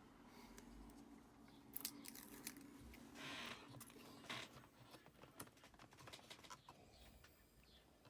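Faint handling of small computer parts: scattered light clicks, with two short rustling peels about three and four seconds in as the backing comes off the self-adhesive strip of an M.2 NVMe adapter.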